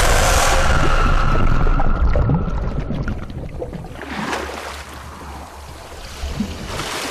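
Loud rushing, churning water from a plunge into a well. After about two seconds it fades into water sloshing and splashing at the surface.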